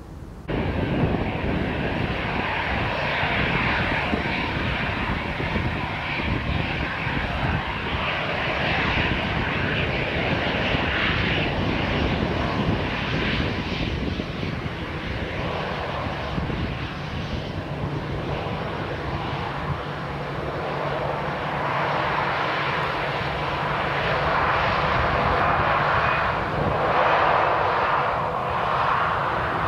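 Jet engines of a Peach Airbus A320-214, its CFM56-5B turbofans running on the runway: a steady rush of jet noise. It starts abruptly about half a second in and grows somewhat louder in the last few seconds.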